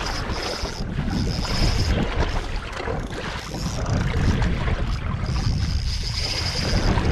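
Wind buffeting the microphone over sea and boat noise, with a spinning reel being cranked in spells, winding in line on a hooked fish.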